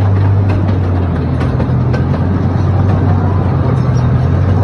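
Miniature zoo train running steadily, heard from inside an open passenger car: a steady low engine drone with rumble and a few light rattles from the moving car.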